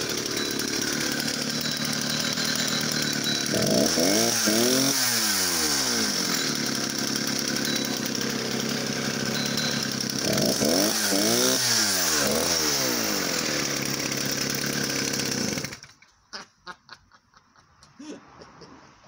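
Vintage Stihl 07 75cc two-stroke chainsaw running at idle and revved up and back down twice, running strongly. The engine cuts off suddenly about three-quarters of the way through, leaving a few faint clicks.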